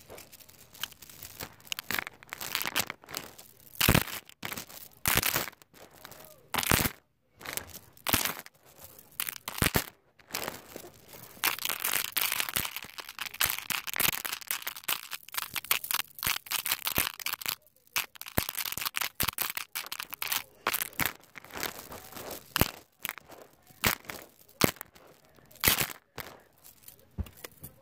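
Close-up, sleep-style (ASMR) handling sounds: crinkling and crackling with many sharp irregular clicks and taps, and a longer stretch of steady rustling near the middle.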